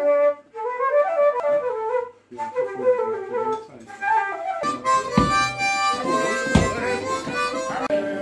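A whistle playing a quick melody, note after note in rapid runs. About four and a half seconds in it cuts to an acoustic guitar being strummed, with two heavy strums.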